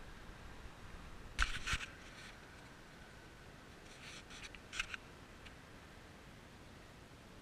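Camera handling noise: a few short scrapes and clicks about a second and a half in and again around four to five seconds in, over quiet outdoor background with a faint steady high tone in the first few seconds.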